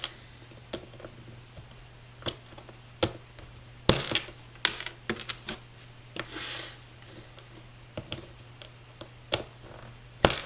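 Scattered sharp clicks and taps of a metal hand driver and small metal and plastic hobby parts being handled and fitted, with a louder click about four seconds in and another near the end.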